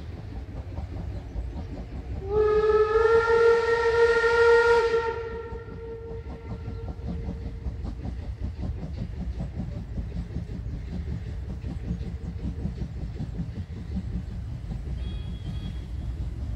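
Steam locomotive whistle: one long blast of a few seconds, starting about two seconds in and fading away afterwards.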